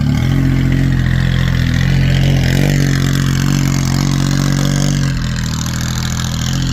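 Small diesel engine of a mini 4x4 farm buggy running steadily. Its note steps in pitch a few times and drops about five seconds in.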